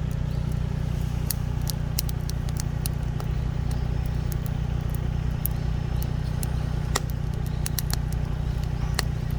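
Wood campfire crackling, with sharp irregular pops over a steady low hum.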